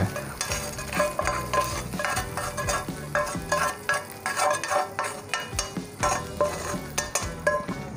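Hot tarka (oil tempered with garlic, cumin, green chillies and curry leaves) sizzling and crackling as it is scraped with a spoon out of a frying pan onto yogurt, with a rapid, irregular patter of crackles throughout.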